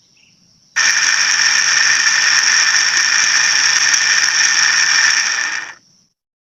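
High-pitched, steady whine of a small electric motor running at speed, with a rough rattling noise under it; it starts abruptly about a second in and stops near the end.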